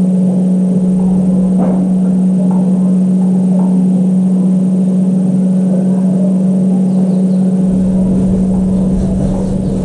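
A loud, steady low hum held on one pitch.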